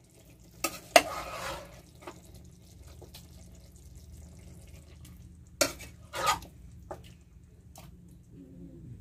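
Metal ladle knocking and scraping against a steel bowl as wet, marinated chicken is pushed out into a karahi, with a few sharp clanks. The loudest clank comes about a second in, followed by a brief wet scraping.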